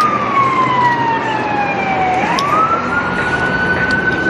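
Vehicle siren on a slow wail: the pitch sinks gradually for about two seconds, swings quickly back up, and holds high near the end, over a steady rushing noise.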